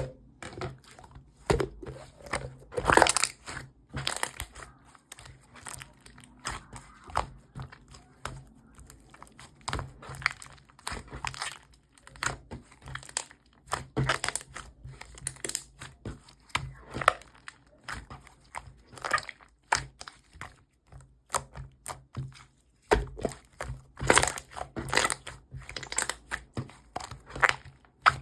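Irregular crackling and crunching, many short clicks at uneven intervals.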